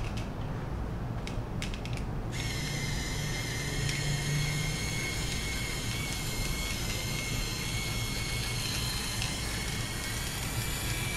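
InStyler rotating hot brush running through a section of hair: after a few light clicks, its motor starts about two seconds in and whines steadily at a high pitch.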